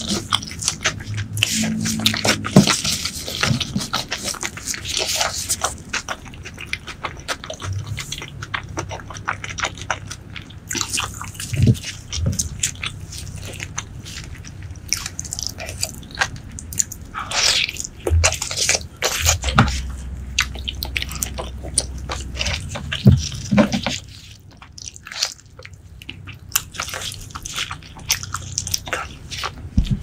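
Close-miked chewing and biting of braised pork leg, a dense run of short clicks, with a quieter stretch a few seconds before the end.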